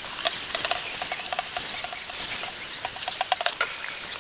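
Kitchen clean-up: a steady hiss like tap water running into a sink, with many light clicks and clinks of dishes and utensils being handled.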